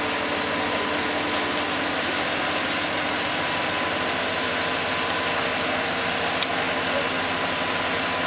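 Mobile crane's diesel engine running steadily, an even mechanical noise with a faint steady whine over it.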